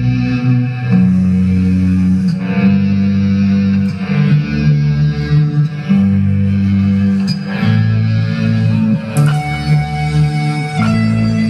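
Music with guitar over a heavy bass line, played loud through a miniature battle sound system's amplifier and speaker stack. The bass notes change every second or two.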